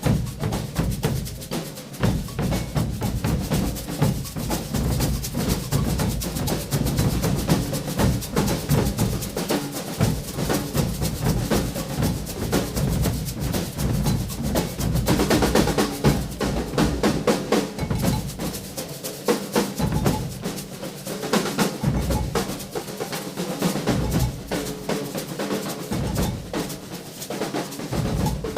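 A maracatu drum group playing a dense, fast rhythm: deep bass drums under crisp snare drums. In the second half the bass drums keep dropping out in short breaks while the snares go on.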